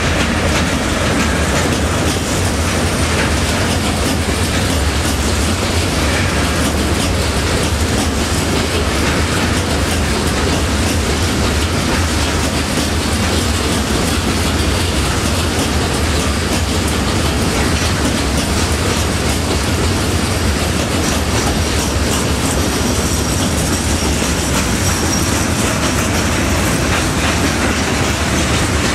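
A freight train of tank wagons rolling past close by. The wheels rumble steadily and clatter over the rail joints without let-up.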